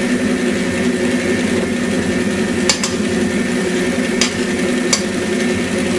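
West Bend stand mixer running steadily, its beaters turning banana bread batter in a stainless steel bowl, with three sharp clicks in the second half.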